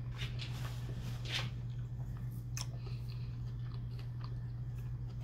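Close-up chewing of a mouthful of cheesesteak sandwich on toasted bread, with scattered small mouth clicks over a steady low hum.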